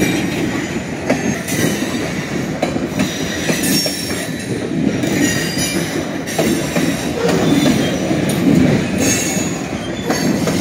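Freight train cars rolling past: a steady rumble of wheels on rail with irregular sharp clacks and short bursts of high wheel squeal.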